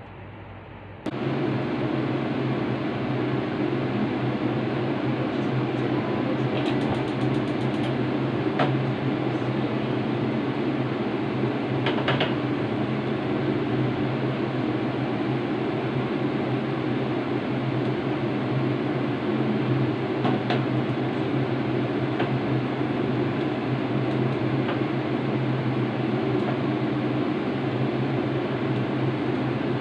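Steady hum of a kitchen fan running, starting abruptly about a second in, with a few light clicks of dishes being handled.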